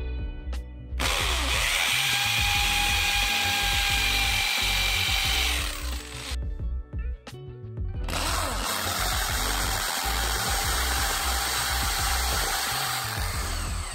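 Corded Craftsman hammer drill boring into a concrete floor with a 3/16-inch masonry bit, in two runs with a short pause between them. The first run, on the plain drill setting, has a steady whine. The second, on the hammer setting, is a harsher, rougher grind.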